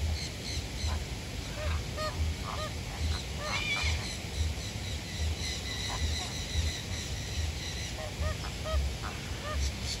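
A flock of American flamingos calling: short honks from several birds, scattered and overlapping, bunching together about three and a half seconds in.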